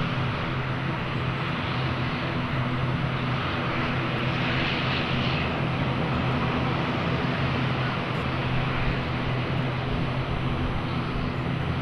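ATR 42-500 turboprop airliner, its twin propeller engines running with a steady, even drone.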